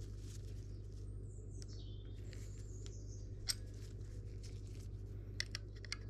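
A few light metallic clicks as an open-ended spanner is fitted to and turns the brake-hose nut on a Shimano MT200 hydraulic disc brake caliper, the sharpest about halfway through and two more near the end, over a steady low background hum.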